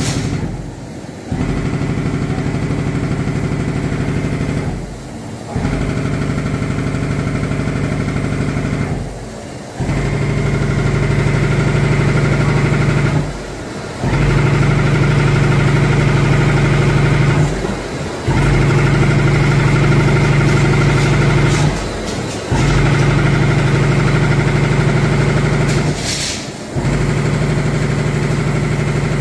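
Richpeace double-head perforating machine running, a steady pitched motor hum with a very fast stroke rhythm. The sound dips briefly about every four seconds, then picks up again.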